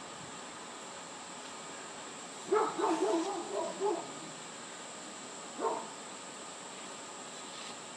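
An animal calling: a quick run of pitched calls lasting about a second and a half, then one more short call a couple of seconds later, over a steady background hiss.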